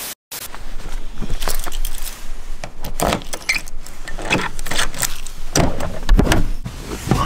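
Car keys jangling and clicking against a car door lock, then the door handle pulled and the door swung open, a run of sharp metallic clicks with a heavier thump near the end.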